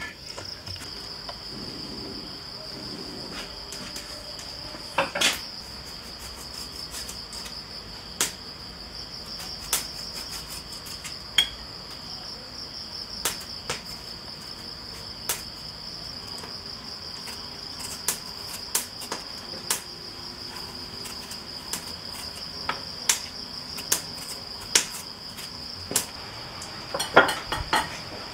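Steady high-pitched chirring of crickets, overlaid with scattered sharp clinks and knocks of cooking utensils against pots and pans, coming more often near the end.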